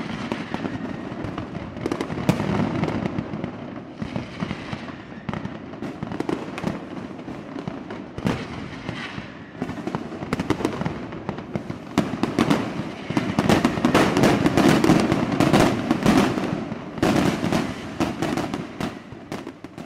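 Fireworks display: a dense run of bangs and crackling from bursting shells, loudest about two-thirds of the way through.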